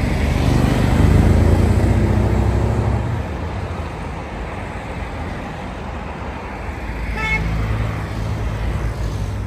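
Road traffic: a motor vehicle passing with its engine rumbling loudest in the first three seconds, then a brief horn toot about seven seconds in.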